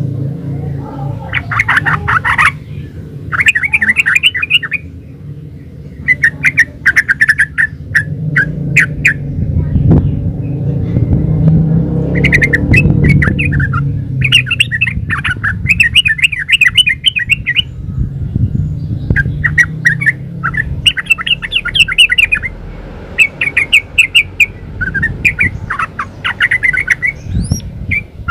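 Yellow-vented bulbul singing in phrases of fast, bubbling chattering notes, each phrase a second or two long and repeated with short pauses, over a steady low rumble.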